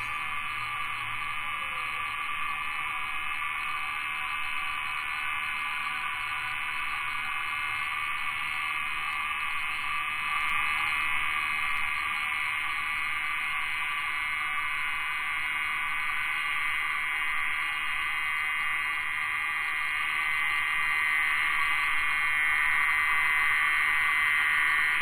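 Steady, dense chorus of rainforest insects and frogs: a shrill, droning mass of many overlapping buzzing tones that swells a little louder in the last few seconds.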